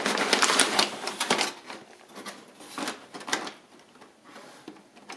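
Crumpled brown packing paper rustling and crackling as a boxed model wagon is pulled out of a cardboard box. It is loudest in the first second and a half, then thins to scattered rustles and small clicks.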